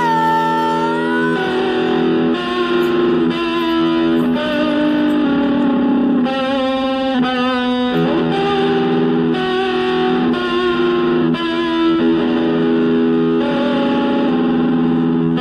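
Distorted electric guitar playing a slow line of held notes, with a stretch of fast repeated notes about halfway through. A woman's sung note trails off about a second in.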